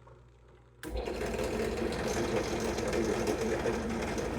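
Power drill starting up about a second in and running steadily at speed, drilling new bolt holes through a mounting bracket.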